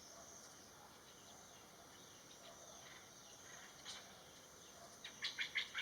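Faint outdoor garden ambience: steady high-pitched insect drone, with a single bird chirp about four seconds in and a quick run of about five high chirps near the end.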